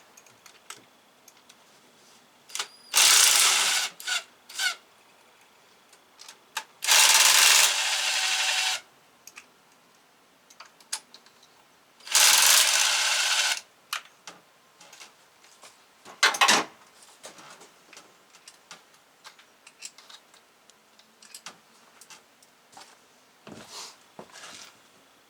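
A handheld power tool, run in three short bursts of one to two seconds each, undoing the fuel rail on a five-cylinder engine. Clicks and knocks of tools on metal come in between, the loudest being a sharp knock about two-thirds of the way through.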